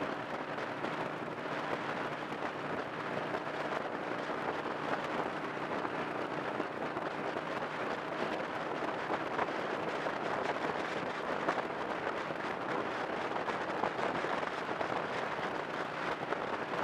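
Steady road and wind noise heard from inside a moving car at highway speed, with a faint, even engine hum underneath.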